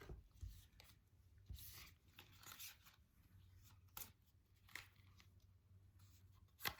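Near silence broken by faint rustles and a few soft taps as tarot cards are handled and drawn.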